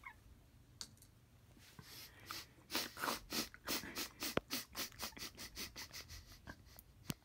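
A person's rapid, breathy huffs through the mouth, about three a second, fading out after a few seconds, with a couple of sharp clicks in between.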